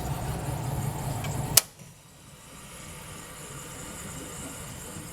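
Indoor air handler running with a steady low hum, then a sharp click about a second and a half in as its power is switched off, and the hum stops at once, leaving a faint hiss.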